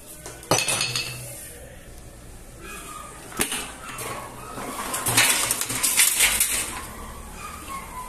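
Metal and plastic clanking and clattering from a washing machine's stainless-steel wash basket and its broken plastic pieces, as the basket, seized on by salt corrosion, is broken apart and pulled out. There is a sharp knock about half a second in, another about three and a half seconds in, then a stretch of rattling clatter around five to six and a half seconds in.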